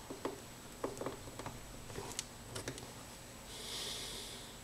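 Small irregular clicks and taps of fingers handling a brass tube pushed into a glue-lined wooden block, with a soft hiss about three and a half seconds in.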